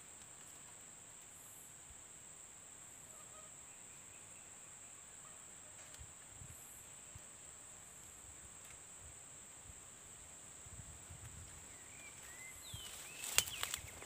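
A steady high-pitched insect drone with a few faint bird calls. Near the end come several loud knocks and rustles, with quick sharp chirping calls among them.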